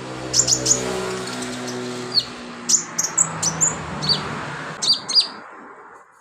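A sunbird (kolibri) singing: bursts of sharp, high chirps and short trills, over a low steady hum that fades out near the end.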